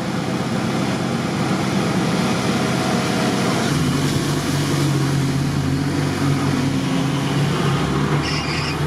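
Off-road vehicle's engine running as it drives through a flooded, muddy track, water sloshing around it, heard from the cabin. The engine gets louder about four seconds in.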